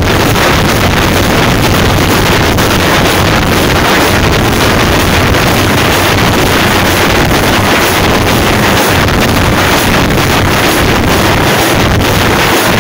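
A troupe of Tamil frame drums (thappu) beaten with sticks, loud and dense, blurring into a steady, unbroken wash of sound.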